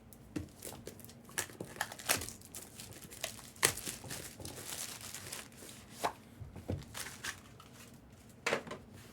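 Packaging being torn open and crinkled by hand as a boxed mystery baseball is unwrapped, with irregular sharp taps and clicks.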